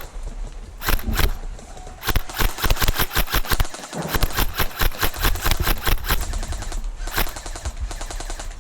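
Airsoft guns firing rapid full-auto bursts of BBs, several bursts in a row, each a fast even rattle of shots.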